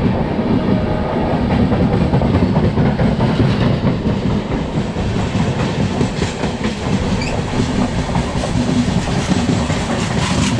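Passing train on the adjacent track, close by: a loud, steady rumble of its coaches with wheels clattering over the rail joints.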